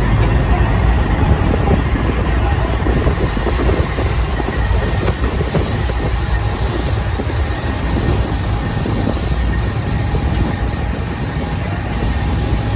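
Semi-trailer of wheat unloading at a grain elevator's dump pit: steady heavy rumble and rattle of grain and elevator machinery, with a faint steady whine running through it.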